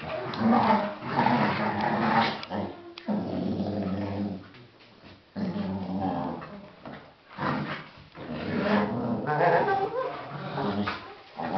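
Two Australian kelpies growling at each other as they play-fight, in rough runs of a second or two with brief pauses.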